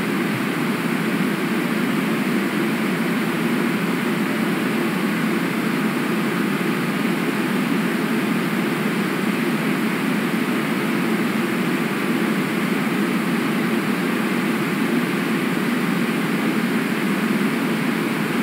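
Steady, unbroken rushing of river water picked up by an outdoor webcam microphone, with no separate splashes standing out.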